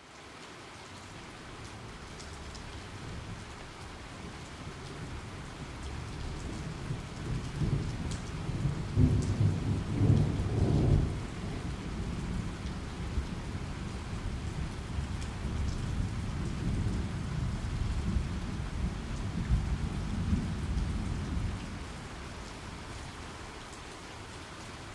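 Steady heavy rain with rolling thunder. The rumbles swell loudest about nine to eleven seconds in, rise again around twenty seconds in, and then ease off, leaving the rain.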